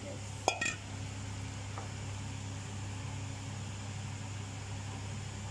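Steady low machine hum, like a running fan, with a single short sharp click about half a second in.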